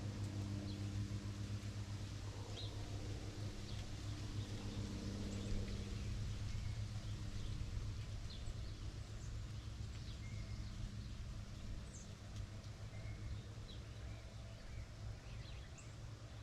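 Birds chirping in short, scattered calls over the steady drone of a distant engine, which fades in the second half.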